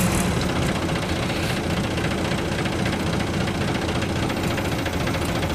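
Isuzu Cubic KC-LV380L city bus's V8 diesel engine running slow, close to idle, heard from inside the cabin as the bus slows almost to a halt. The hiss of rolling dies away at the start, leaving the steady engine beat.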